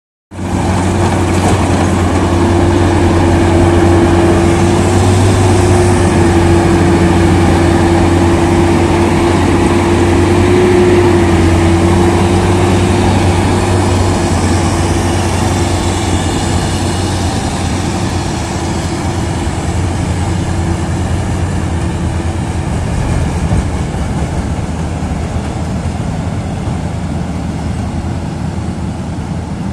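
Maxxi NDR 102L rice combine harvester running while it harvests. A steady engine drone carries a held higher whine that fades about halfway through. The whole sound eases a little as the machine moves away.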